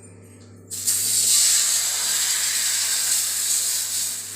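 Dosa batter sizzling as it is poured onto a hot griddle: a sudden loud hiss begins under a second in and holds, easing a little near the end.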